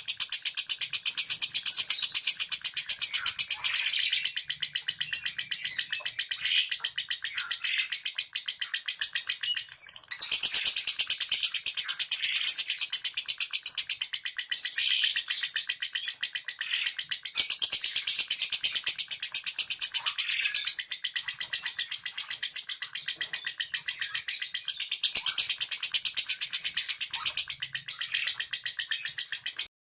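Lovebird singing its rapid 'ngentik' song: dense, high, even ticking chatter like fast typing, in loud bouts of a few seconds with softer stretches between, cutting off abruptly near the end.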